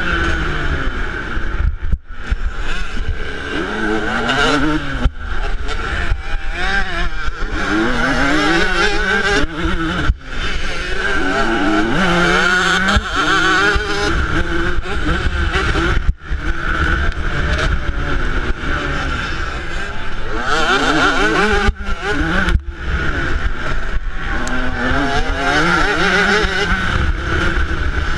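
2008 Yamaha YZ125's single-cylinder two-stroke engine revving hard, its pitch rising and falling repeatedly as the bike races around a motocross track. The sound dips sharply for an instant several times.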